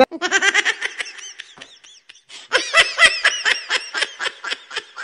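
A person laughing in rapid, high-pitched bursts, with a short pause about two seconds in before the laughter picks up again.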